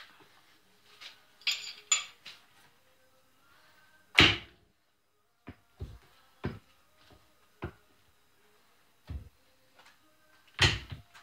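Irregular knocks and clunks, the loudest about four seconds in and near the end, over a faint steady hum.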